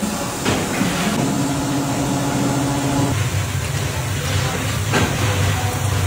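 Factory machinery at rubber ball-moulding presses running: a steady low hum with a hiss over it. A higher steady whine joins for about two seconds, about a second in.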